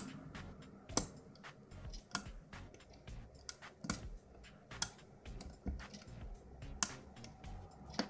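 Hook pick working the pins of an ERA six-pin euro cylinder held under tension: irregular small metallic clicks as the pins are lifted and set, a few of them much louder.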